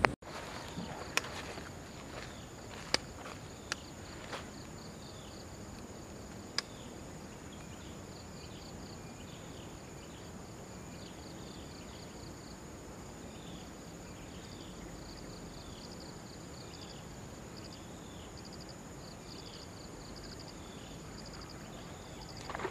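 Insects calling: a steady high-pitched drone with a repeating chirping trill about once a second. Several sharp clicks stand out in the first seven seconds.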